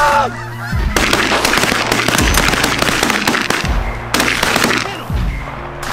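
Shotgun volley from several goose hunters: a rapid string of overlapping shots for about three seconds, then a few scattered shots after it.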